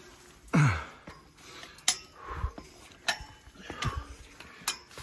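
Boots striking the treads of a steel stair-ladder as a hiker climbs it: five sharp metallic clanks about a second apart. The first, about half a second in, is the loudest and has a low thud.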